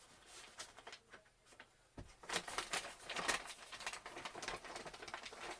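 A mailed package being opened by hand: irregular rustling and crinkling of the packaging with small clicks, a low knock about two seconds in, and busier handling after it.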